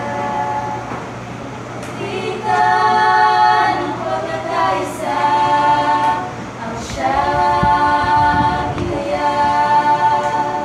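A small mixed group of four voices, one male and three female, singing unaccompanied in harmony, with long held notes in short phrases broken by brief breaths.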